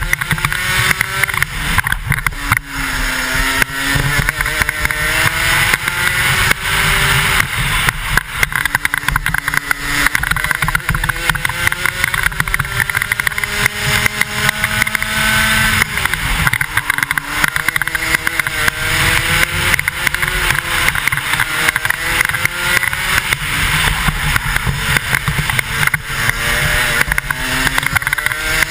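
A 125cc single-cylinder two-stroke kart engine under hard acceleration. Its pitch climbs steadily through each straight and drops sharply for the braking zones, several times over. Heavy wind buffeting on the helmet-mounted microphone runs underneath.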